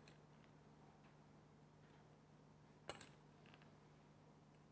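Near silence: a faint steady hum with two light clicks, one at the very start and a sharper one about three seconds in.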